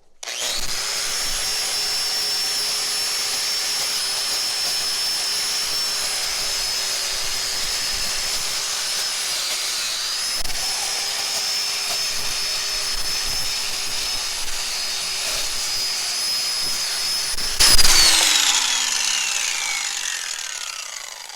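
Electric grinder with a wire wheel running at speed, scouring rust and crud off a cast-iron vise with a steady whine. Its pitch sags briefly about halfway through under load. Near the end there is a loud burst, then the whine falls steadily as the wheel spins down after switch-off.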